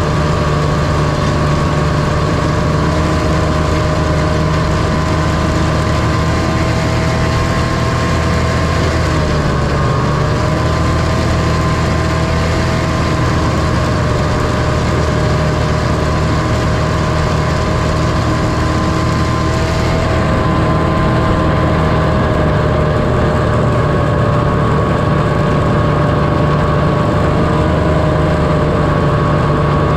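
1978 John Deere Liquifire snowmobile's liquid-cooled two-stroke engine running at a steady cruise. Its pitch dips briefly about ten seconds in, then holds steady again.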